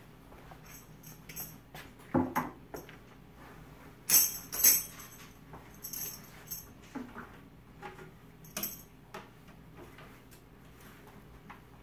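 Handling and setup noises: a few knocks and thumps, with several short bursts of light metallic jingling, the loudest about four seconds in, as an acoustic guitar is picked up.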